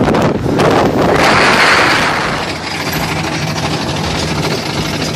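A roller coaster train running at speed with wind rushing over the microphone. About two and a half seconds in it drops to a quieter, steady rattling rumble of the wheels on the track as the train slows.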